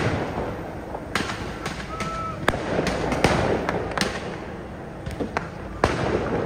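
Firework mortars going off: about ten sharp bangs at irregular intervals, each trailing an echo.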